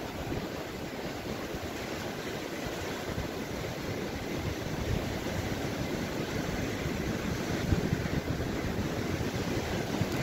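Shallow North Sea surf washing in over the sand around concrete pier pilings, a steady rush of water mixed with wind rumbling on the microphone.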